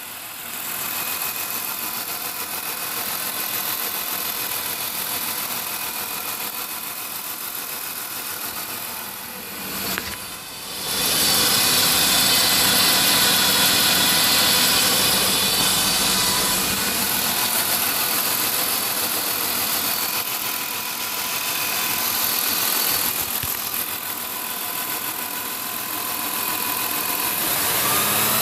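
A 2000 Ford Taurus DOHC 3.0 V6 engine running steadily, with a noise from the crankshaft pulley area that started after an output shaft speed sensor swap. The owner has ruled out the belt, the belt-driven accessories, the harmonic balancer and the crank pulley, and wonders whether the front passenger engine mount is shot. It gets louder about 11 seconds in and stays there.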